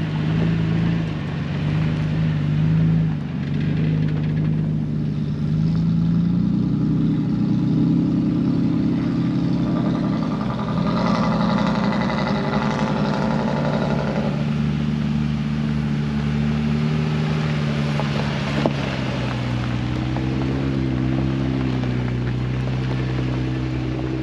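Off-road 4x4 engines running at low revs as the vehicles crawl along a rutted dirt trail, the engine note rising and falling a little, with one short sharp knock about two thirds of the way through.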